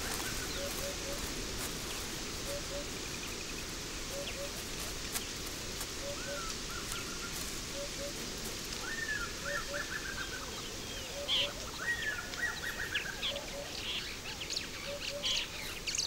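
Wild birds calling over a steady outdoor hiss. A low double note repeats every second or two, and a higher bird gives rising calls, twice breaking into a quick run of notes, about nine and twelve seconds in.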